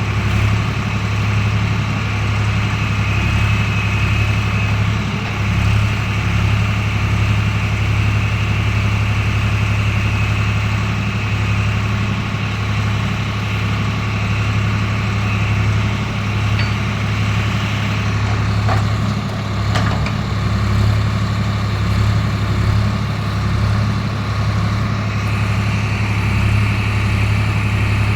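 Swaraj tractor's diesel engine running steadily with a constant low hum.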